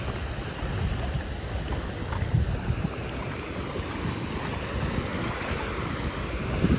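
Wind buffeting the microphone in an uneven low rumble, over the wash of surf on the beach.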